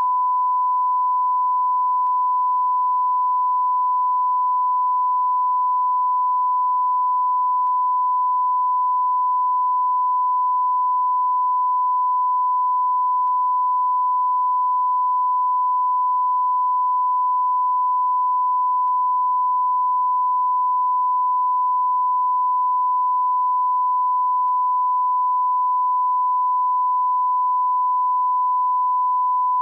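Electronic beep sound effect: one steady pure tone, held unbroken at an even level.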